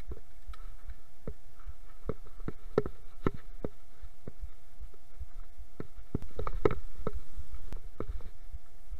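Mountain bike rattling over a rough, rocky descent: irregular knocks and clacks from the bike, with a low rumble underneath. The knocks come thicker and louder about six to seven and a half seconds in.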